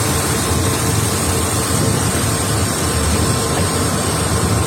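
Steady low rumble of a running vehicle, with thin constant whining tones above it.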